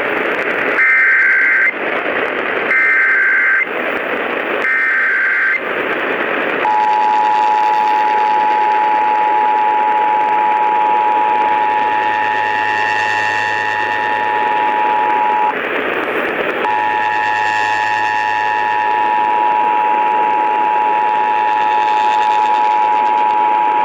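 Emergency Alert System test heard over AM radio with static hiss. First come three short bursts of warbling data tones, the header codes. Then the two-tone attention signal sounds as a steady dual tone, cut out briefly about two-thirds of the way through and then resumed.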